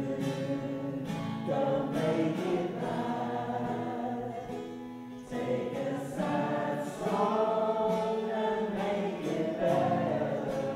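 A small choir of people living with aphasia singing a song together in unison, accompanied by a strummed acoustic guitar.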